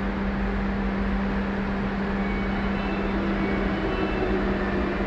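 Steady hum of a Keikyu electric train standing at an underground station platform: a constant low tone over an even rush of noise.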